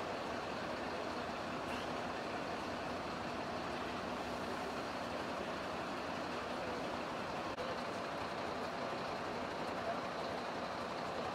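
Fire truck engine running steadily, a constant drone that does not change.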